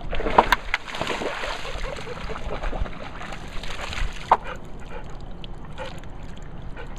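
Dog splashing through shallow lake water, with the water sloshing around it; the splashing is heaviest in the first couple of seconds, and there is a sharp splash about four and a half seconds in.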